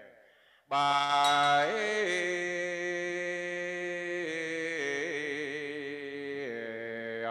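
A monk's voice in Vietnamese Buddhist requiem chanting. After a short pause at the start it holds long, drawn-out sung notes that shift pitch a few times.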